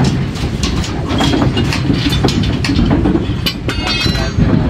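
Loud construction-site din: a steady low rumble of machinery with frequent sharp metallic clanks and clicks, and a brief high squeal near the end.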